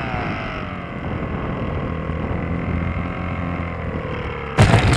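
RC plane's motor and propeller whining over a rush of air, the pitch falling in the first second as the throttle is cut back, then holding steady and lower. Near the end the plane hits the ground with a sudden loud clatter and scraping.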